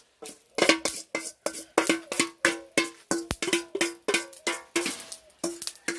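A metal spoon knocking and scraping against a metal cooking container while scooping thick pudding batter, making a quick series of ringing clanks, about two or three a second.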